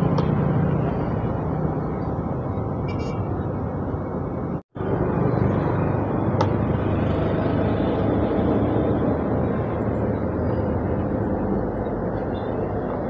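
Engine traffic: a motorcycle and then a large coach bus running past, a steady engine rumble with road noise. The sound drops out for a moment about five seconds in, then the rumble carries on.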